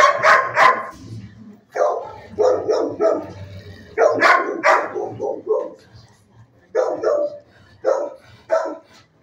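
Dogs barking repeatedly in a kennel: short barks in quick runs of two to four, with brief pauses between the runs.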